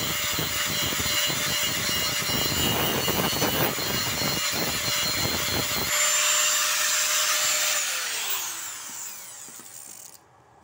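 Electric angle grinder grinding a steel plate, the disc scraping against the metal over a steady high whine. About six seconds in the disc comes off the work and the motor runs free, then it is switched off and the whine falls away as the disc winds down to a stop.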